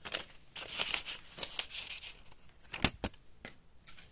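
Paper rustling and crinkling in the hands, in a run of short scratchy bursts, followed by three sharp clicks about three seconds in.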